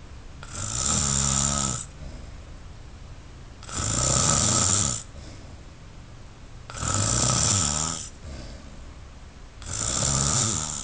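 A man snoring on a steady rhythm: four long, loud snores about three seconds apart, each lasting a little over a second.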